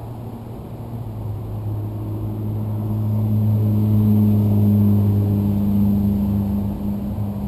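A car engine running at low speed close by, a steady low hum that grows louder to a peak about four to five seconds in and then eases off, as a car moves slowly past or pulls up.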